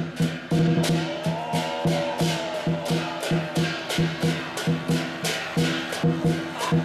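Temple music with a fast, steady percussion beat, several strokes a second. A melody line rises and falls over it from about one to two and a half seconds in.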